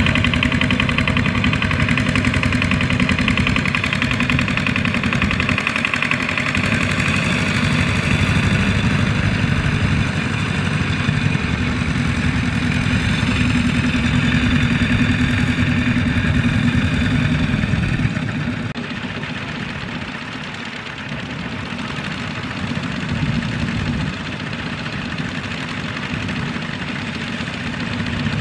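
Single-cylinder diesel engine of a two-wheel walking tractor (power tiller) running steadily. It drops somewhat in level about two-thirds of the way through, then picks up again near the end.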